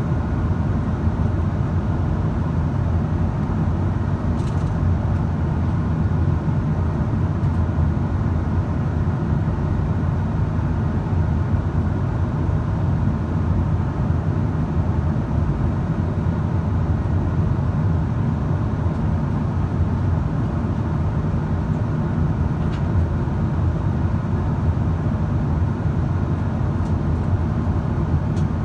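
Steady low roar of cabin noise inside a Boeing 777-200ER in flight.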